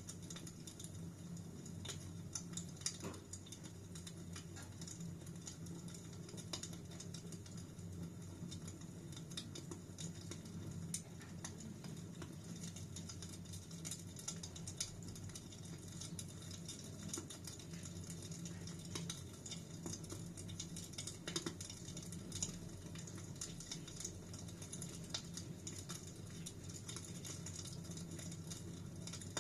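Fireplace fire crackling steadily: a low, even rush of flames with frequent small irregular crackles and an occasional louder pop.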